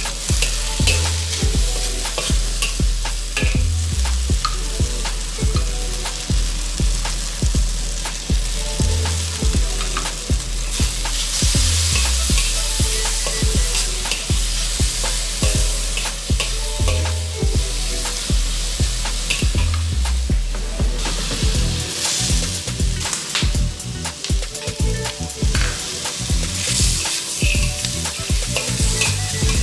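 Shredded beef sizzling in a hot wok, stirred and tossed with a spatula that scrapes and clicks against the wok over and over.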